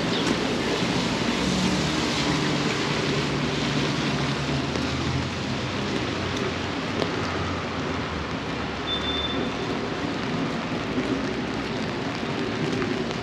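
Steady rain on a wet city street, with traffic noise. A low vehicle hum runs through the first two-thirds and then fades away.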